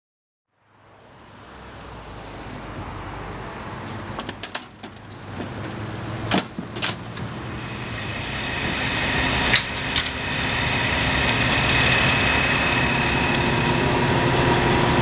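Work-site ambience fading in: a steady vehicle-engine drone that builds and grows louder, with a few sharp clicks and knocks between about four and ten seconds in and a steady whine riding on the drone in the second half.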